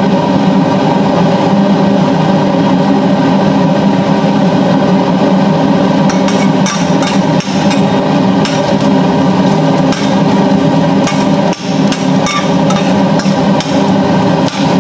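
Metal spatula knocking and scraping against a stainless steel pot, a string of sharp clinks from about six seconds in, over a steady loud hum.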